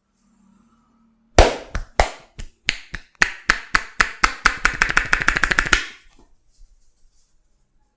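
Rhythmic hand slaps of a barber's percussive massage: about twenty sharp smacks that speed up from about two a second to a rapid patter near the end, then stop suddenly.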